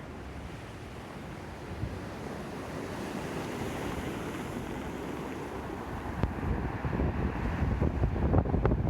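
Ocean surf roaring as waves break, a steady wash that swells louder through the second half. Wind buffets the microphone in uneven low thumps over the last few seconds.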